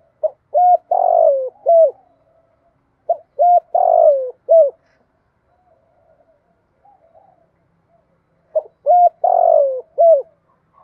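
Spotted dove cooing its song three times, each phrase a few short coos around one longer, loudest note that falls in pitch, with faint soft notes in the gaps between phrases.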